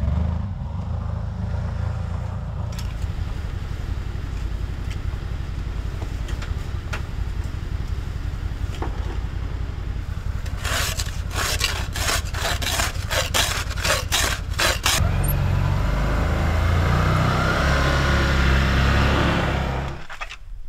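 Can-Am Defender side-by-side engine running steadily. About halfway through there is a quick run of sharp metallic clacks, then the engine runs louder as the machine drives off through deep snow, fading just before the end.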